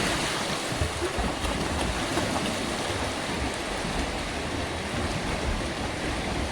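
Several swimmers kicking and stroking through pond water just after diving in, a continuous churning splash.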